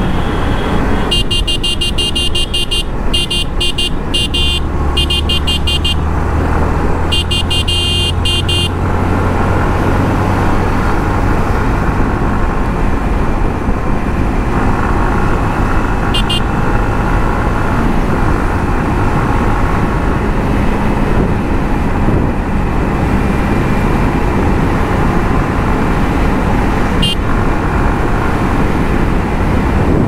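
Yamaha MT-15's 155 cc single-cylinder engine running at steady cruising speed, with wind rush on the microphone. From about one to nine seconds in, a vehicle horn honks in a series of short, high blasts.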